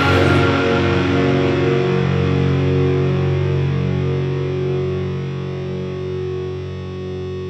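Background rock music: a distorted electric guitar chord held and ringing out, slowly fading.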